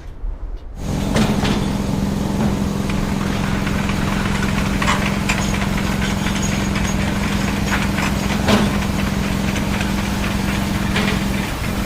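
A heavy machine's engine comes in suddenly about a second in and then runs steadily at an even idle-like speed, with scattered clicks and knocks over it.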